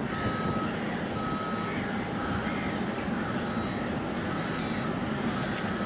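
Airbus A330-200's jet engines running at low taxi thrust as the airliner turns onto the runway: a steady distant hum and hiss. Two short beeps sound in the first two seconds.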